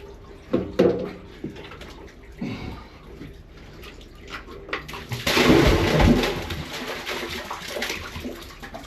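A rush of splashing liquid, loudest for about a second starting five seconds in and then trailing off, after a few short knocks.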